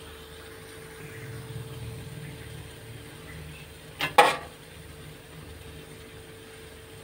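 A metal kitchen knife clattering twice in quick succession against the iron roasting plate, about four seconds in, over a faint steady hum.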